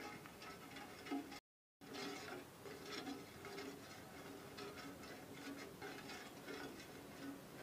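Faint crackling and ticking of chili spice paste frying in oil in a small aluminium saucepan as it is stirred with a plastic spoon. The sound cuts out for about half a second near the start, then carries on.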